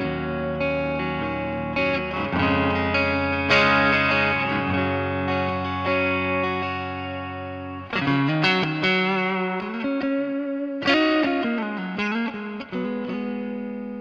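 Gillmore GFT 15 Telecaster-style electric guitar played through a Boss Katana amplifier. Sustained chords ring out and slowly fade for about the first half, then a single-note lead line follows with bent notes.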